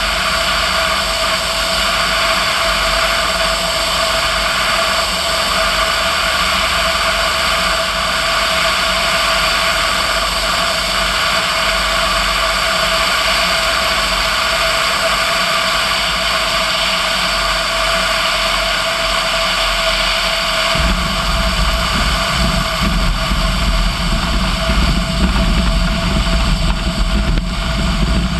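Steady wind rush and engine drone of a Socata TB10 Tobago single-engine light aircraft on final approach, heard at the wing tip. About 21 seconds in a heavier, uneven low rumble sets in as the wheels touch down and roll on the grass runway.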